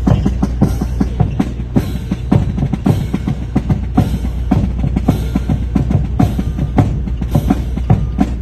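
Drums playing a fast cadence, with dense snare and bass-drum strikes several times a second, over a steady low rumble.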